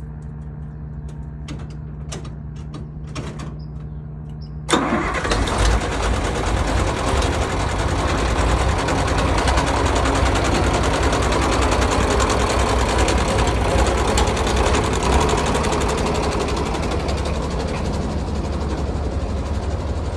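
John Deere 4010 tractor engine starting: a low steady hum with a few clicks, then about five seconds in the engine catches with a sudden jump in loudness and keeps running loudly with a rapid clatter.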